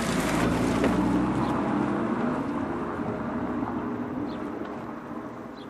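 Audi TT RS Roadster's turbocharged five-cylinder engine driving past, loudest about a second in, then fading away.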